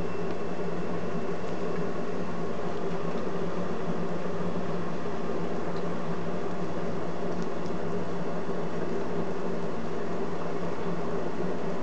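A steady mechanical hum with an even whirring hiss, unchanging throughout.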